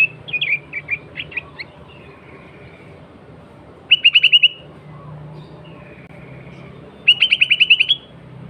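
Sooty-headed bulbul calling: a string of quick chirps, then two fast rattling bursts of about eight notes each, one around four seconds in and one near the end.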